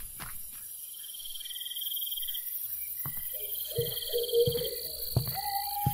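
Crickets trilling steadily in the night. Several sharp thumps come in the second half, along with a short falling tone near the end.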